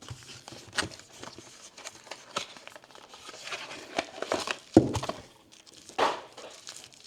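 Battery-pack packaging crinkling and rustling as it is handled, with irregular clicks and knocks.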